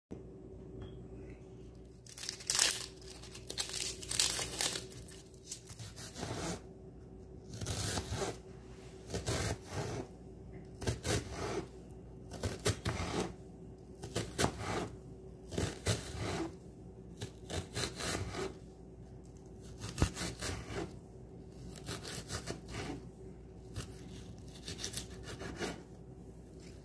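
Knife slicing through a sweet onion on a wooden cutting board: a crunchy cutting stroke, with the blade meeting the board, about once a second.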